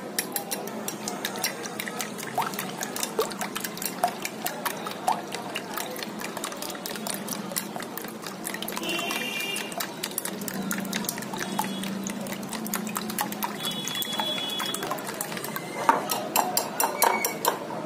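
Raw eggs being beaten with a balloon whisk in a glass bowl: fast, continuous wet sloshing with a rapid run of light clicks as the whisk wires strike the glass.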